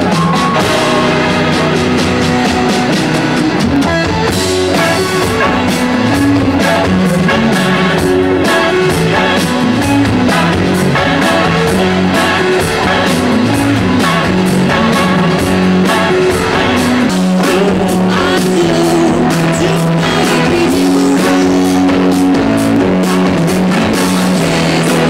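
Live rock band playing loud and continuous, with electric guitars over a drum kit.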